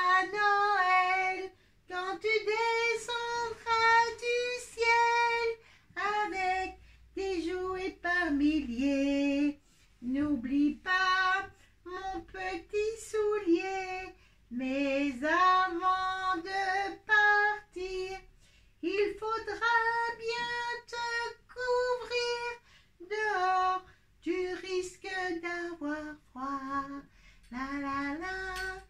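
A high, childlike voice singing a tune with no accompaniment, in short phrases of held notes with brief pauses between them.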